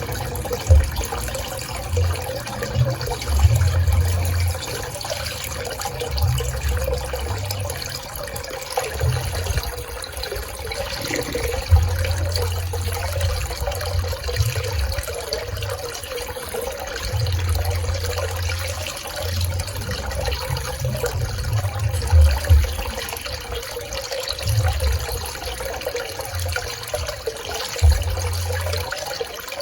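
Swimming pool water running and splashing in a continuous wash, with a faint steady hum and deep low rumbles that come and go every few seconds.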